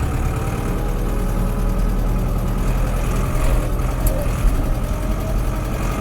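Case 885XL tractor's four-cylinder diesel engine running steadily while the tractor is driven.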